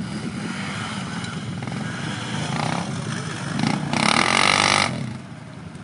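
ATV engines running off-road, rising and falling; about four seconds in, one revs loudly close by for about a second.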